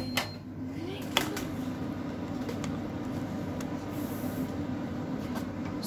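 Steady low hum of a kitchen appliance running, with a couple of light knocks near the start and about a second in.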